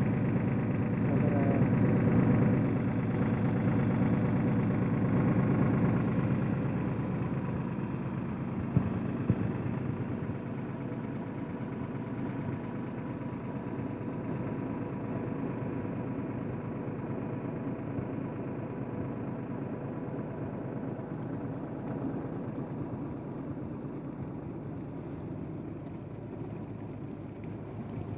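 Farm tractor's diesel engine running steadily, louder over the first several seconds and then quieter. Two sharp knocks about nine seconds in.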